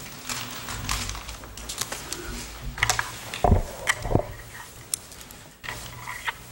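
Papers rustling and being handled close to the table microphones, with scattered clicks and two louder knocks on the table about halfway through.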